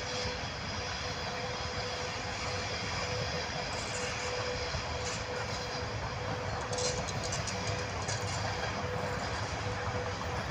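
VL80S electric locomotives hauling a freight train past: a continuous rumble of wheels on rail, with a steady hum.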